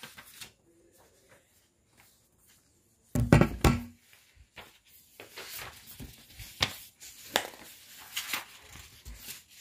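A handheld phone is dropped: a loud thump and clatter about three seconds in, followed by repeated rustling and scraping of handling.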